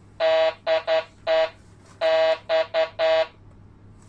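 Electronic alarm beeping: two identical groups of four pitched beeps, long–short–short–long, the second group starting just under two seconds after the first.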